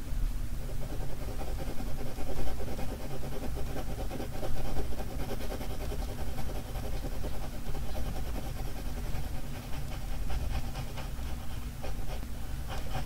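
Pencil shading on paper: quick back-and-forth scratching strokes as the bulldog's nose is filled in dark, over a low steady hum.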